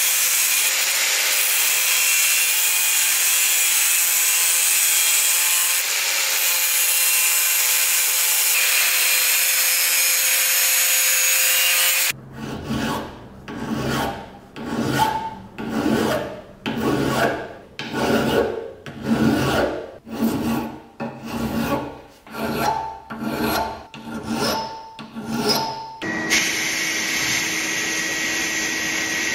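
Angle grinder with a cut-off disc cutting through a rusty metal strip, a steady whining grind. Then a hand file rasping across metal in even strokes, about one a second. In the last few seconds an abrasive blasting gun hisses steadily inside a blast cabinet.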